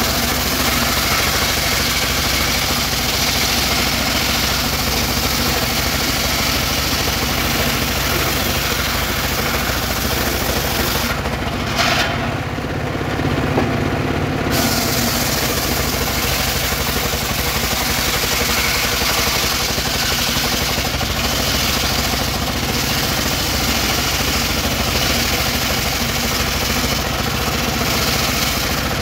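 Engine-driven portable circular sawmill ripping a weru (Albizia procera) log into boards: the engine runs steadily under load while the blade cuts through the wood. A little before halfway, the cutting hiss drops away for about three seconds while the blade spins free between passes, then the cut resumes.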